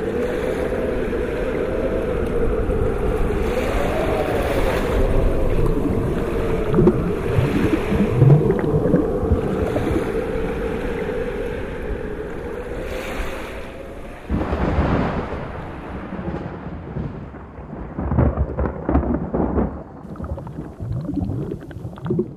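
Steady wash of sea or underwater noise with a sustained, wavering drone tone above it. From about two-thirds through, the wash thins and breaks into irregular short watery bursts.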